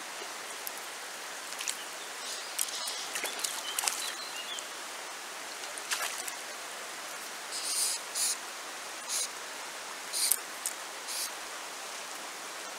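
Shallow river water running over stones, a steady rushing hiss. Several short, bright splashy bursts break through it, mostly in the second half.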